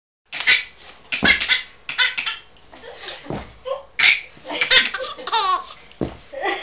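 Baby laughing hard in a string of short bursts, about one a second.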